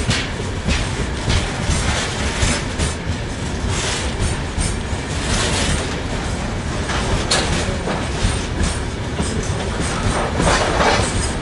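Freight train's open gondola wagons rolling past close by: a steady low rumble of steel wheels on rail, with irregular clattering as the wheels cross rail joints.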